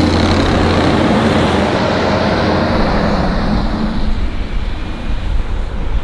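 Kubota SVL65-2 compact track loader's diesel engine running as it pushes snow with a box plow: a steady low engine hum under a broad rushing noise. The hum drops out about a second in, and the noise turns quieter and unsteady over the last two seconds.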